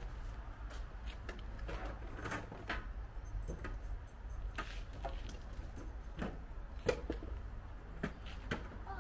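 Scattered light clicks and knocks from tools and parts being handled, at irregular moments, with a steady low hum underneath. The sharpest knock comes about seven seconds in. No drill is running.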